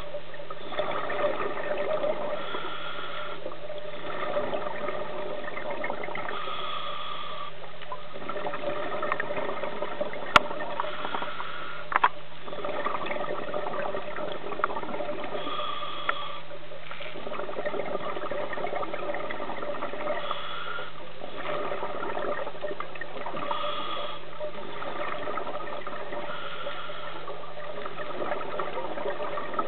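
Scuba regulator breathing heard underwater: bursts of hiss and bubbling that return every three to four seconds with each breath, over a steady low hum. Two sharp clicks, about ten and twelve seconds in.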